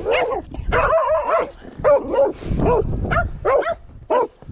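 Hunting dogs barking at a mink they have found, about a dozen short, high barks in quick runs, some overlapping.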